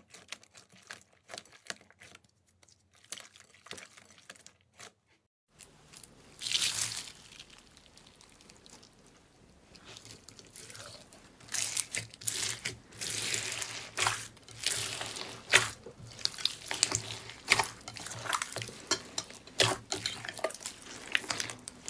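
Hands working slime: sparse soft crackling clicks from a thick purple slime being kneaded, then, about five seconds in, louder wet squelching and dense crackling as a clear blue slime full of foam beads is poked and pressed.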